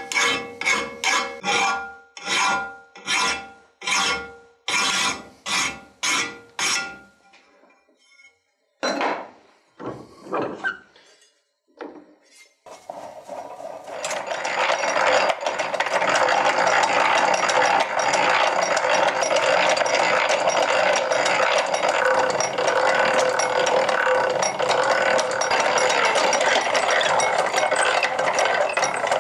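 Hand file stroking along the cleaver's steel blade, about two strokes a second, the blade ringing with each stroke. After a short pause and a few scrapes, a twist drill bit bores steadily through the cleaver's metal on a hand-cranked post drill, throwing out chips.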